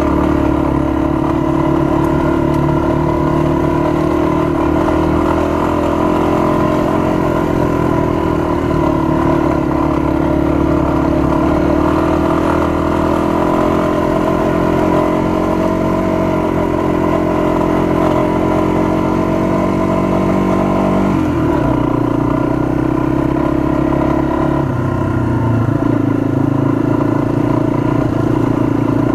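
Single-cylinder four-stroke Yamaha dual-sport motorcycle engine running under way on a dirt trail. The note rises and falls with the throttle and drops sharply about two-thirds of the way through, then climbs again.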